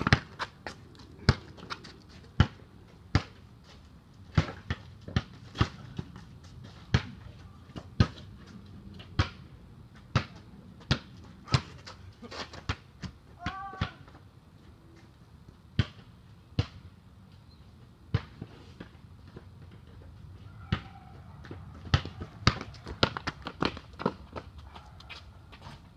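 Basketball bouncing on a hard court, dribbled at about one to two bounces a second with a few short pauses. A brief high squeak sounds about halfway through.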